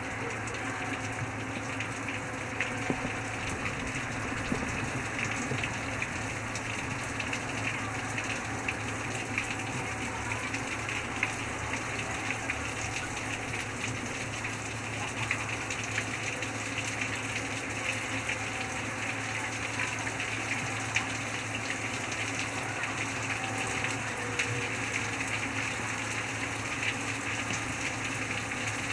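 Steady rain: an even hiss of falling water with faint, close drop ticks, over a low steady hum.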